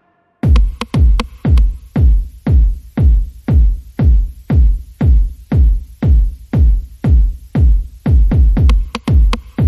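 Electronic background music: after a moment of silence, a heavy, pumping kick-drum beat comes in about half a second in and keeps a steady pulse of about two beats a second.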